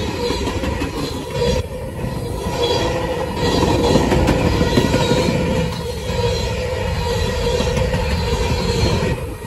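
Freight train's open-top hopper cars rolling past close by: a steady rumble and clatter of steel wheels on the rails, with a thin steady squeal of wheels against the rail over it. It gets a little louder about a third of the way in.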